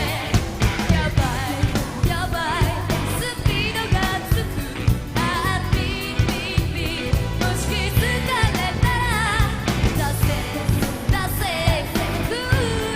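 Upbeat J-pop song: female vocals with wavering, vibrato-like pitch sung over a steady dance beat and band backing.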